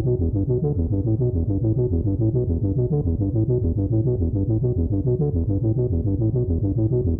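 Background music: a synthesizer playing a fast, evenly repeating pattern of notes.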